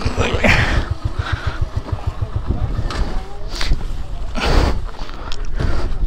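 Motorcycle engine running at low speed, a steady low chug, with a few short bursts of noise about half a second in and again midway through.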